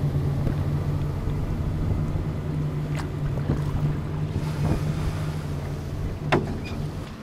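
Three outboard motors driving a rigid inflatable boat at speed: a steady engine drone over the rush of water and wind on the microphone. Two sharp knocks cut through, about three seconds in and again near the end.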